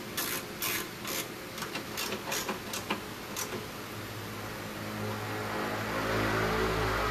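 Car workshop sounds: a run of sharp clicks and scrapes, likely hand tools on metal, over the first three seconds above a steady low mechanical hum, then a low rumble and hiss that swell and get louder from about four seconds in.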